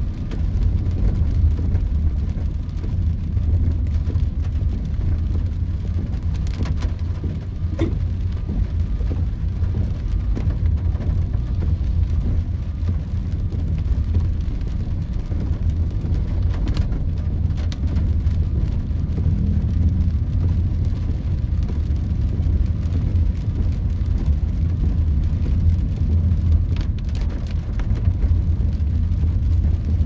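Steady low rumble of a car driving on a wet road, heard from inside the cabin, with rain on the car and a few scattered sharp taps.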